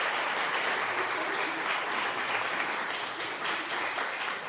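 Audience applause, a dense steady patter of many hands clapping that fades out near the end.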